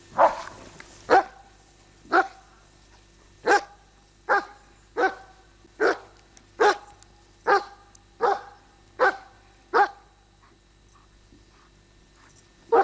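A German Shepherd customs dog barking over and over, about once a second, at a man in a padded protection suit it is holding at bay. It pauses for a couple of seconds near the end, then gives one more bark.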